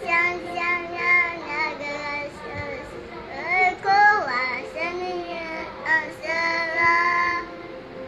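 A two-year-old girl singing a nursery rhyme in a high child's voice, holding some notes and sliding up and down between others.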